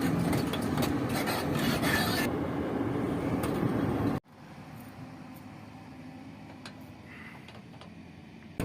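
Heavy vehicle engine running under load with rattling and grinding noise. About four seconds in, the sound cuts abruptly to a quieter, steady engine hum.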